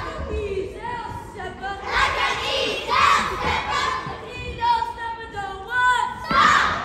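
Young performers' voices chanting in unison in a sing-song rhythm, with a few sharp stomps or claps cutting in, the loudest near the end.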